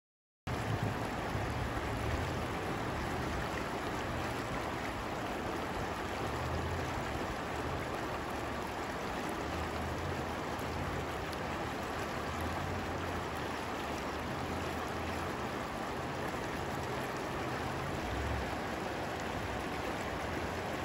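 River water rushing steadily over shallow rocky riffles. It cuts in abruptly about half a second in.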